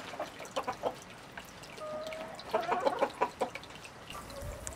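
Chickens clucking in short calls, with a cluster of them about three seconds in.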